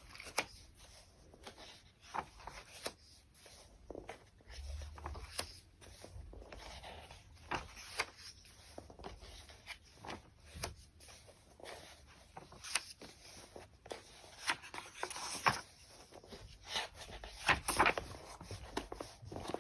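Pages of a book being turned one after another: irregular paper swishes and flicks with small rubs and taps of handling, a few of them louder near the end.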